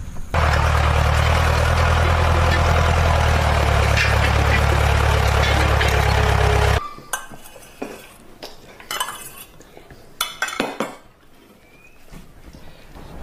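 Tractor engine running loudly and steadily, cutting off suddenly about seven seconds in. It is followed by scattered metal clinks and knocks as a wood-burning cookstove is tended.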